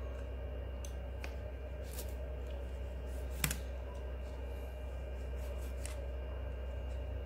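Box cutter blade trimming spines and flesh from the bevelled edge of a golden barrel cactus: a few small crisp clicks and scrapes, with one sharper click about halfway through. A steady low hum runs underneath.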